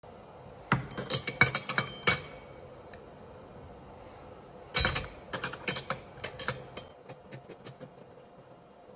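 Sharp metallic clinks and clatter of a stainless steel jigger being set into and handled in a metal clamping fixture, in two quick bursts about four seconds apart, then a few fainter ticks near the end.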